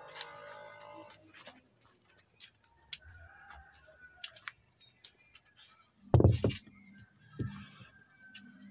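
Rural evening ambience: a steady high-pitched insect drone with a bird chirping over and over in quick short notes. A loud knock with a low thump comes about six seconds in, and a smaller one follows a second later.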